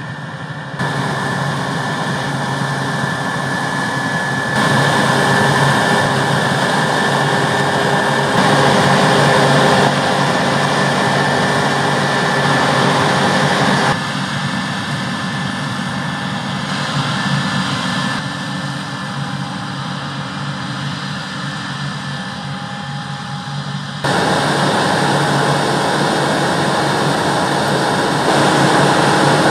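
Diesel engines and harvesting machinery of a combine harvester and grain-cart tractors working in a wheat field. A steady heavy drone with a faint high whine, its loudness and tone changing abruptly several times.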